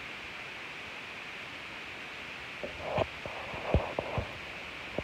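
Steady faint hiss, then a short cluster of dull thumps and knocks with a brief rustle, starting about two and a half seconds in and stopping a little after four seconds.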